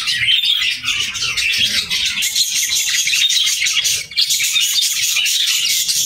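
Many budgerigars chirping and chattering at once: a dense, steady, high twittering, with a brief lull about four seconds in.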